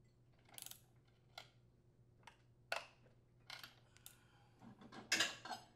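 Torque wrench working the flywheel mounting bolt of a Briggs & Stratton small engine up to 100 foot-pounds: a string of faint, separate metallic clicks, with a denser run of clicks near the end.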